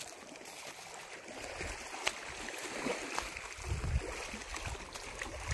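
Small waves lapping against a stony lakeshore, with a few light clicks and a couple of low thumps near the end.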